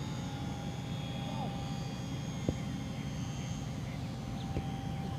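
Electric motor and propeller of a HobbyZone Super Cub S RC plane in flight, a steady even whine, with one sharp tick about halfway through.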